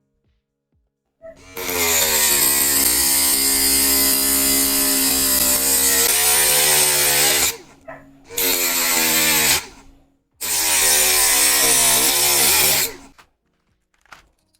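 Homemade DC-motor drill running loudly in three bursts, a long run of about six seconds followed by two shorter ones, each a high whine over a grinding hiss, its pitch wavering during the last run.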